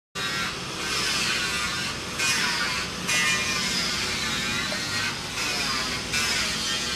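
Electric power tool motor whining steadily, its high pitch wavering slightly and dipping briefly several times as if under changing load.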